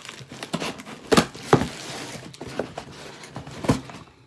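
A shipping box being opened by hand: rustling and crinkling of paper and plastic packaging, with a few sharp knocks and clicks.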